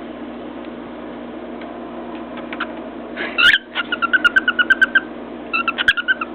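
Cockatiel calling in two runs of rapid short chirping notes, about ten a second, after a brief rising call, with a couple of sharp taps among them.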